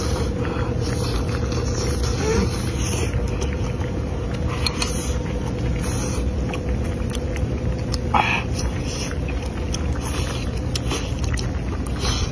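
A steady low mechanical rumble with a faint steady hum. Over it, a man eats with slurps and chewing, in short sharp sounds, the clearest about eight seconds in.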